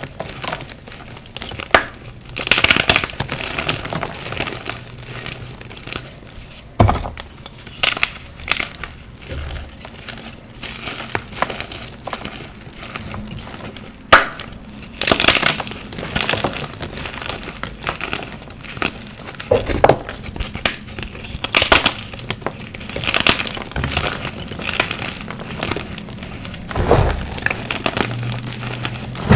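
Dyed gym chalk being crushed and squeezed by hand: dry, crumbly crunching and crackling in irregular bursts as chunks break apart, with soft rustle of powder between.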